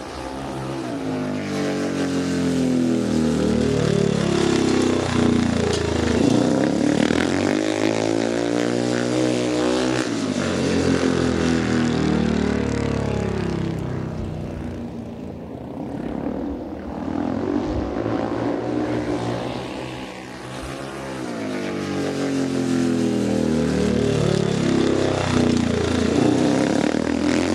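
Speedway motorcycle engine running on a dirt track, the drone swelling and fading as the bike comes round and passes, its pitch sweeping up and down with each pass.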